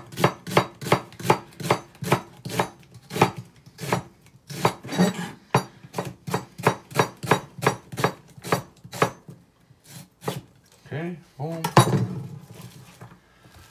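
Chef's knife slicing an onion thin on a cutting board: quick, even strokes, about three or four a second, tapping the blade on the board. About ten seconds in the rhythm stops and gives way to a few scattered knocks, one of them loud.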